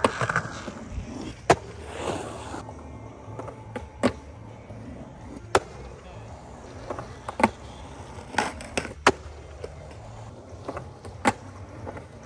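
Skateboards rolling on concrete with a steady rumble, broken by sharp clacks of the boards hitting the concrete about once every second or two.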